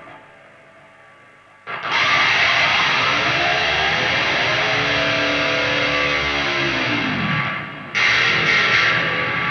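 High-gain distorted electric guitar, an Ibanez PIA through an amp plugin. A faint fading note gives way, about two seconds in, to a loud chord held for some six seconds whose pitch sinks before it cuts off. Another chord is struck near the end.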